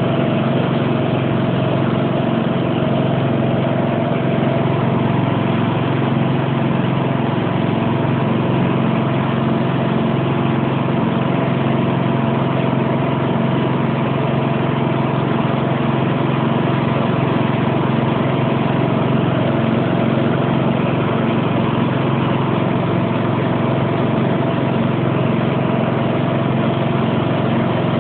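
Sentinel garden tractor's engine running at a steady, unchanging speed.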